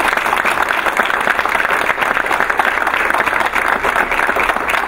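Applause from a small group of people clapping steadily in a meeting room.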